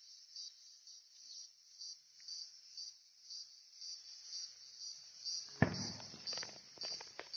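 An insect chirping high-pitched in a steady pulse, about two chirps a second. About five and a half seconds in, a sharp knock, then a run of crackling clicks.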